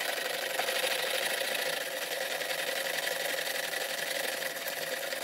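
Pull-cord manual food chopper whirring steadily as its blades spin, chopping tomato and cucumber.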